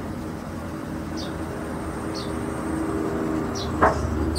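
A steady low rumble of background traffic, with short high chirps several times through it and a single sharp knock shortly before the end.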